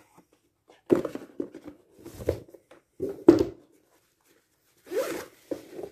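Handling noise from a cardboard cube box and a fabric bag: a few short rustles and knocks, with a sharp knock a little past three seconds in and a brief hissing rustle near the end.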